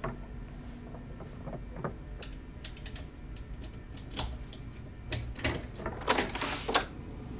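Irregular small clicks and scratchy strokes over a low steady hum. They grow denser, with louder clusters between about five and seven seconds in.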